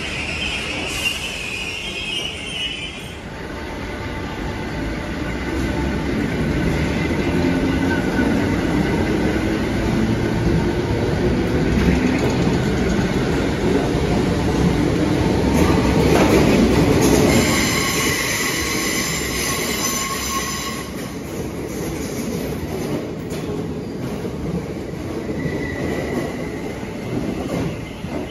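Merseyrail electric multiple unit pulling out of an underground station and picking up speed. Its motor hum rises steadily in pitch, a high squeal comes from the wheels about two-thirds through, and then the sound fades as the train runs off into the tunnel, echoing off the platform walls.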